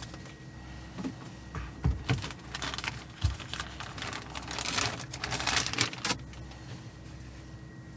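Small plastic model-kit parts and their plastic bag being opened and handled: a few light clicks and taps, then a crinkly rustle of plastic ending about six seconds in.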